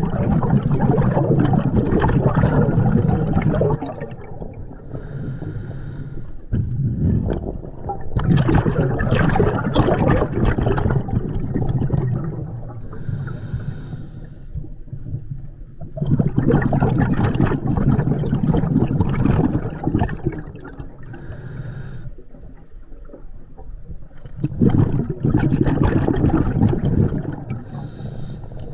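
Scuba diver breathing through an open-circuit regulator: four long bursts of exhaled bubbles rushing and bubbling past the mask, about every eight seconds, with a quieter hiss of inhalation through the regulator between them.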